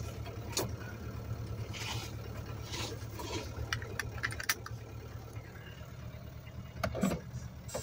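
The four-cylinder diesel of a 1975 Mercedes-Benz 240D running steadily, heard from inside the cabin. Over it, the camera scrapes and rubs against clothing, with a few scattered clicks.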